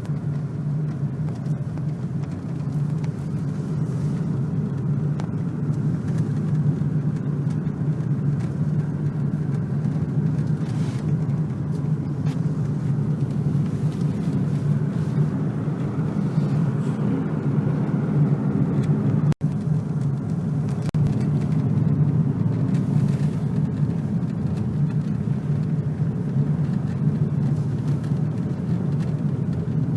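A car driving, with a steady low engine and road hum. The sound drops out for an instant about two-thirds of the way through.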